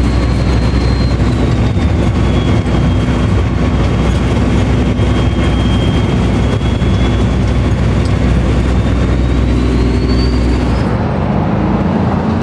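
Cummins ISX diesel of a 2008 Kenworth W900L under way, heard from inside the cab: a steady low engine drone with road noise and a faint high whine above it. About eleven seconds in, the higher sounds drop away and the low engine sound goes on.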